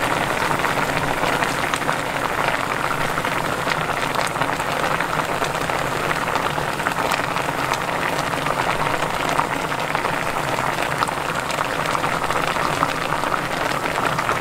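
Braising broth bubbling and crackling steadily around pieces of mackerel in a pan.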